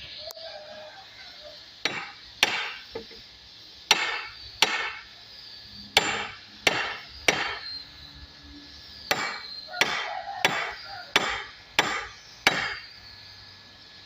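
A hammer or mallet striking wood about a dozen times, each a sharp knock with a short ringing tail, coming roughly every two-thirds of a second in short runs with brief pauses between.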